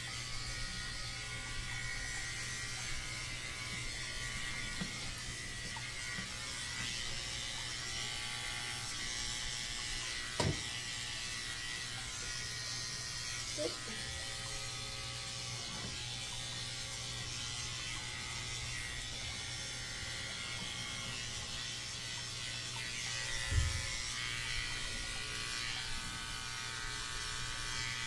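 Corded electric dog grooming clippers running steadily as they clip a small dog's coat, with a few brief knocks, the loudest about two-thirds of the way through.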